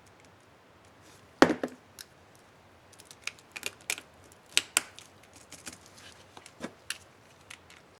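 Plastic laptop keycap clicking on an HP Pavilion dv4 keyboard: one sharp snap about a second and a half in, then a quick, uneven run of lighter key clicks, as the Shift keycap is fitted and pressed.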